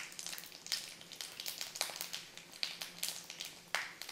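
Cumin seeds and black peppercorns sizzling in a spoonful of hot oil, with irregular crackling pops.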